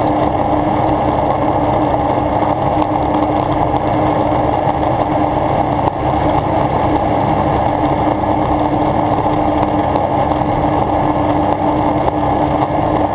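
Yamaha WaveRunner personal watercraft running at speed, its engine and jet drive a steady drone with one steady whine, under a loud rush of water and wind.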